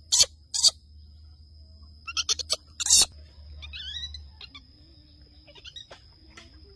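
Baby monkey giving loud, shrill screeching cries, a few short ones at the start and a longer run of them about two to three seconds in, followed by fainter chirping calls.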